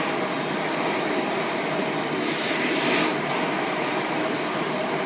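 Compressed air blowing hard from a plasma cutter torch with the trigger held for pre-flow, a steady hiss. The air pressure is set too high, which the operator blames on a faulty pressure regulator.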